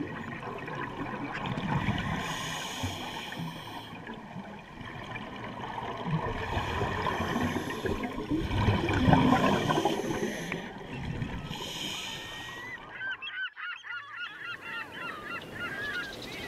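Underwater scuba sound: a steady rumble of regulator breathing, with hissing bursts of exhaled bubbles about every four seconds. About thirteen seconds in it cuts sharply to birds calling over and over with short chirping calls.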